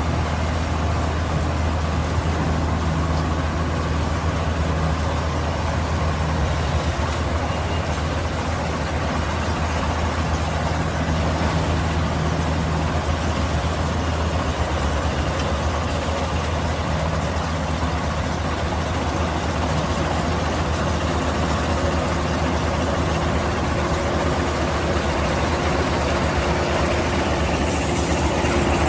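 Crawler rice combine harvester's diesel engine running steadily, a constant low hum under a dense whir of the harvesting machinery.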